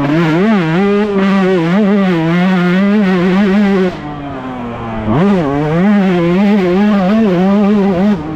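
Yamaha YZ125 two-stroke single-cylinder engine at racing revs, its pitch wavering up and down as the throttle is worked. About four seconds in it comes off the throttle with a falling pitch, then picks up again with a sharp rise a second later.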